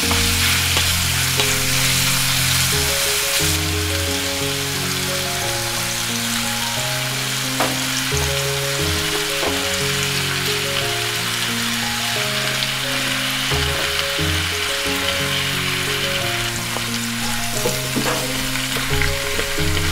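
Chicken and vegetables for nikujaga sizzling in a frying pan as they are stir-fried, with a few sharp clicks. Soft background music with slow, held notes plays underneath.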